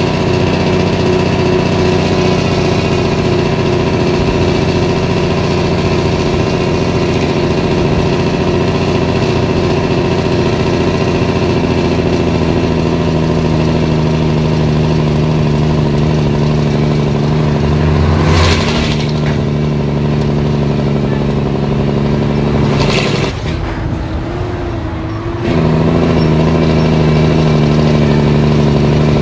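Heavy diesel truck engine heard from inside the cab, running steadily while driving down a long hill, its pitch slowly sinking. Two short hisses come late on. About three-quarters through, the engine note drops away for roughly two seconds, then picks up again.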